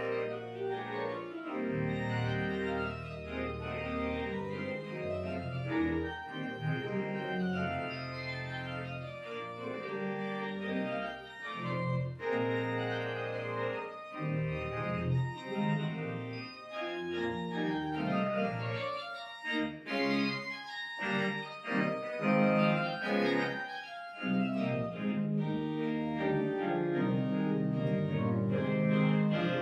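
1979 Austin pipe organ playing a piece: sustained chords that change every second or so over deep pedal bass notes, with a few short breaks about two-thirds of the way through.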